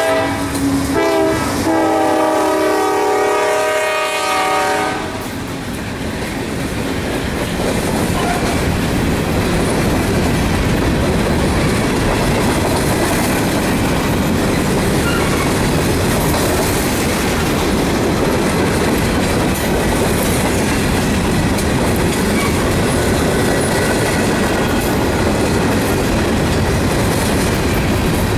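Norfolk Southern GE wide-cab locomotive's multi-tone air horn, breaking briefly about a second in, then one long blast that ends about five seconds in. Loaded covered hopper cars of a fast-moving grain train then roll past steadily, their wheels clattering over the rail joints.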